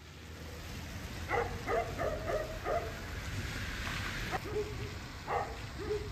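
A dog barking in quick short bursts: a run of about five barks starting about a second in, then a few more later. Under it are a steady hiss of rain and the low rumble of a car driving off.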